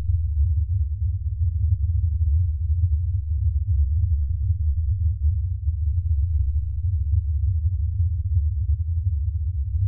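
Deep, steady low drone of rumbling bass, part of a film soundtrack's sound design, flickering slightly in level but otherwise unchanging.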